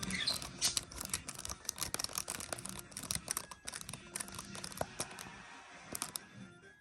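Irregular light clicks, taps and rattles from hands and a small screwdriver working screws into a plastic RC car chassis during reassembly.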